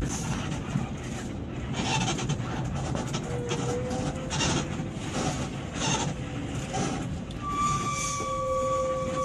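Heavy road-traffic noise with a low engine rumble throughout. A vehicle horn sounds faintly for about a second some three seconds in, then again as a steadier two-note tone for nearly two seconds near the end.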